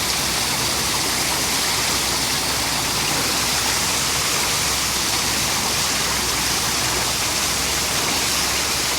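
Public water fountain running, its water splashing with a steady, unbroken rush.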